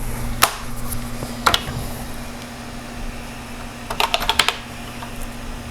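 Keys being typed on a computer keyboard: two single key presses about a second apart, then a quick run of about six keystrokes near the end, over a steady low hum.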